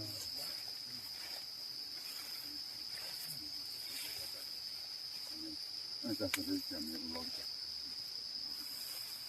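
Steady, unbroken high-pitched trill of insects, crickets by their sound, going on throughout. A person's voice is heard briefly about six seconds in, with a sharp click at the same time.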